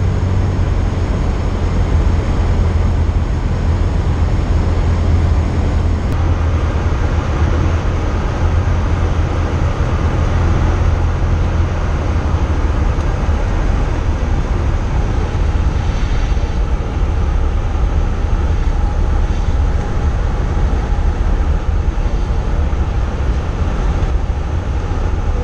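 Cessna 172's piston engine and propeller droning steadily in flight, with a constant rush of wind noise over it.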